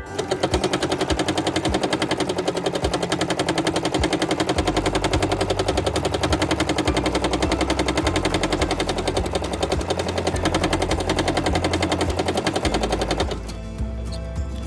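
Domestic sewing machine fitted with a hopping foot, running fast for free-motion quilting: needle and foot tapping in a rapid, even rattle. It stops about a second before the end.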